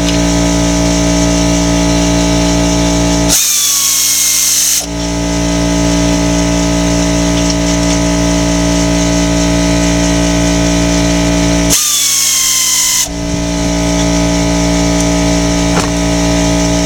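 A power tool runs twice, each time for about a second and a half, with a hissing whir whose pitch falls as it runs. Under it is a steady machine hum of many even tones.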